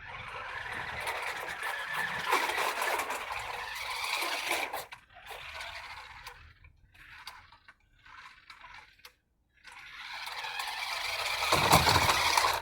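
Remote-control car driving: its motor and wheels run with a steady whirring rush for about five seconds, then come in short stop-start bursts. After a brief pause it speeds up again and gets louder toward the end.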